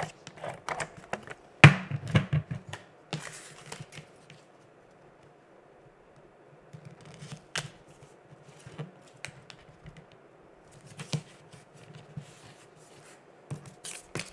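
Hands handling and placing cardstock and paper pieces on a cutting mat: scattered taps, clicks and paper rustles, busiest in the first few seconds with one sharp knock a little under two seconds in, then sparser.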